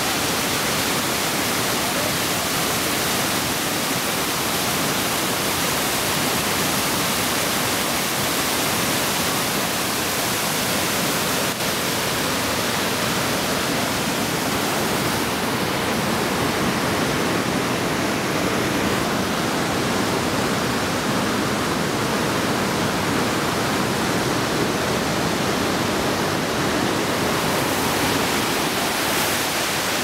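Sahalie Falls, a large waterfall, pouring into whitewater cascades: a dense, steady rush of falling and churning water with no breaks.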